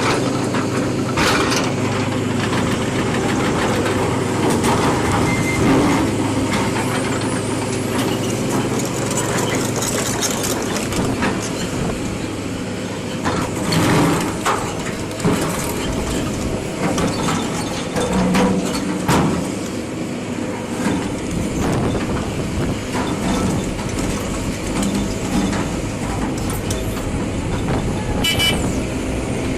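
Heavy diesel engine running steadily, with scattered knocks and clanks.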